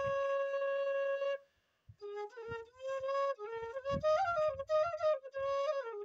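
Handmade side-blown bamboo flute (bansuri) playing a tune: one long held note, a brief break for breath about a second and a half in, then a run of quick notes stepping up and down.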